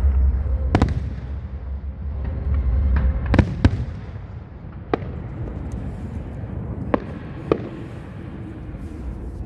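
Fireworks display: aerial shells bursting with about six sharp bangs spread over several seconds, over a low rumble that eases after about three and a half seconds.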